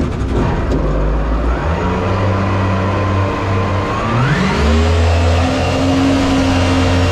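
Mini jet boat's 1053cc Yamaha four-stroke engine running, then revving up sharply about four seconds in and holding at higher revs.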